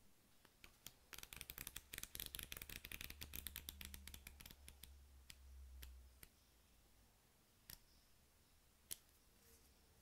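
Pages of a small hand-held paper flip book riffled off the thumb: a fast, fluttering run of paper flicks lasting about five seconds, then a couple of single page clicks near the end.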